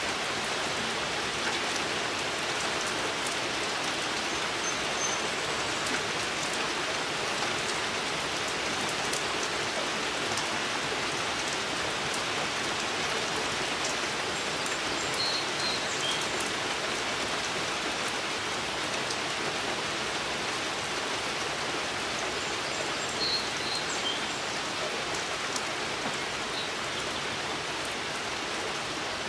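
Steady rain falling: an even hiss with fine ticks of drops. A small bird gives faint short chirps a few times, around the middle and again later.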